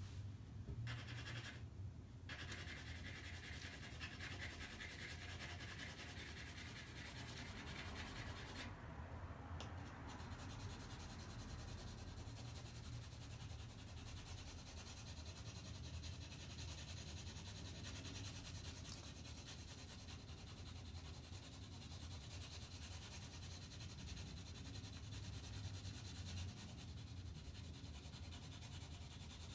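Graphite pencil shading on drawing paper: a faint, steady scratchy rubbing of back-and-forth strokes as tone is built up, stopping briefly a few times in the first ten seconds.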